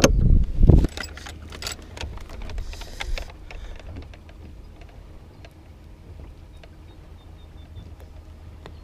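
A few thumps, then scattered sharp clicks and knocks from handling a caught bass and gear on a fishing boat. These die away after about three seconds, leaving a low steady hum.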